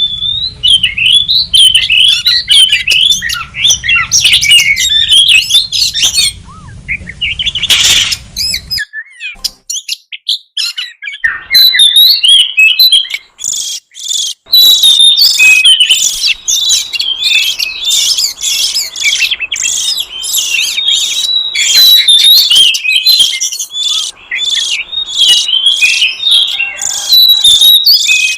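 Oriental magpie-robin (kacer) lure call: rapid chirps and short whistles, breaking off for a couple of seconds about a third of the way in, then a dense run of fast chirps. It is the sound played to draw wild magpie-robins in for trapping.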